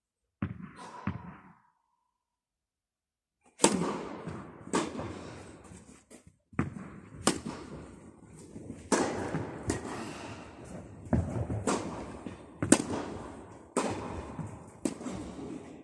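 Tennis ball being hit by rackets in a doubles rally: sharp cracks about once a second, each ringing out in the echo of an indoor tennis hall. Two softer knocks come near the start, then a short pause, and the hitting begins about three and a half seconds in.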